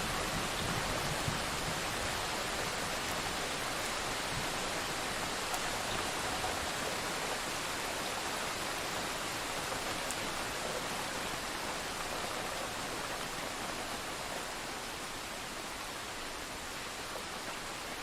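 Steady heavy rain from a thunderstorm sound effect, a dense even hiss that eases slightly toward the end.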